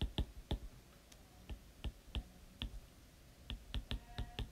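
Stylus tip tapping and clicking on a tablet's glass screen while handwriting numbers: a faint, irregular string of sharp clicks, bunched closer together about three and a half seconds in.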